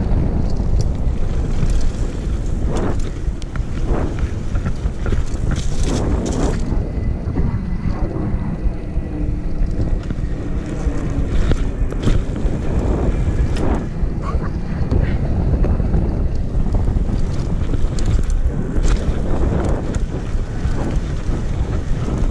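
Wind buffeting a chest-mounted microphone over the rumble of a mountain bike riding a trail, with frequent knocks and rattles from the bike over bumps.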